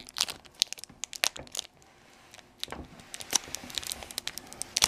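Foil baseball card pack wrapper crinkling and tearing as it is peeled open by hand, in irregular crackles with a short lull partway through.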